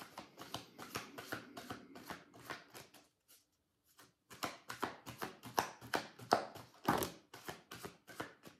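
A deck of oracle cards being shuffled by hand, a fast run of light card flicks and slaps that stops for about a second roughly three seconds in, then starts again.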